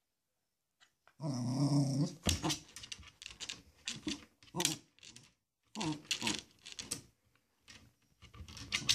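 Yorkshire terrier growling for about a second. Then its claws scratch and tap repeatedly on the glass front of a terrarium, in quick uneven strokes.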